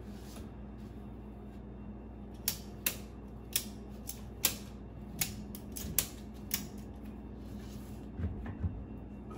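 A string of sharp, irregular clicks, about eight over four seconds, then two dull thumps near the end, as a MerCruiser Alpha One stern drive is cinched up on a lifting strap and worked into alignment against the boat.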